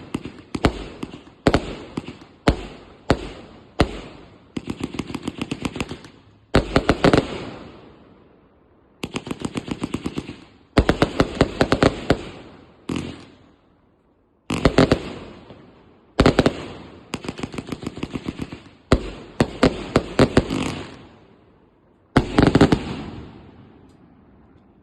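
150-shot firework cake firing. It starts with single bangs under a second apart, then lets off rapid strings of shots in bursts of one to two seconds with short gaps between them. The last burst dies away near the end.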